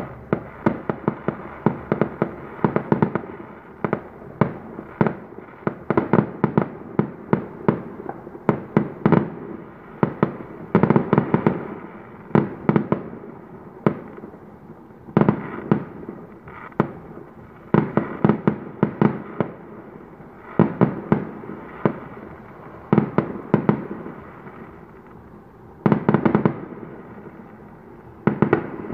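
Fireworks going off: rapid volleys of sharp bangs and crackles, several a second, with short lulls between volleys.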